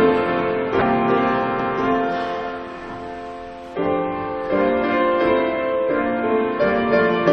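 Piano playing slow, held chords. About halfway through the notes die away, then a new chord comes in.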